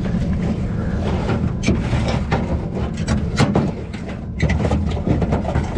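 Irregular knocks and clatter of a wet crab pot and its rope being handled in a boat, over a steady low rumble.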